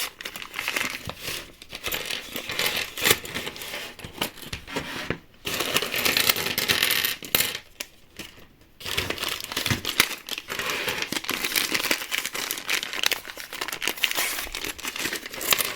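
Packaging crinkling and rustling as a miniature kit's small parts are rummaged through, with short pauses about five and eight seconds in.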